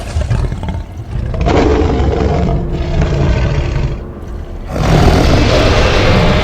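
Film sound effect of a large dinosaur roaring, with music underneath. A long roar starts about a second and a half in, dips briefly, and a second, louder burst of sound starts near five seconds.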